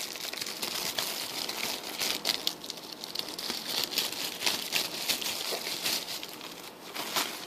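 Plastic packaging crinkling and rustling as it is handled, with many small crackles.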